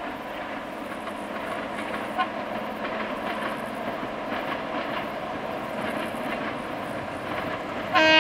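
LDH diesel-hydraulic locomotive hauling a passenger train, running steadily with wheel-on-rail noise. A short, loud horn blast sounds near the end.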